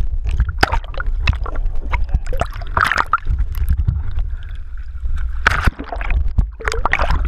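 Muffled water sloshing and gurgling around a submerged camera, over a steady low rumble, with frequent knocks and clicks against the housing.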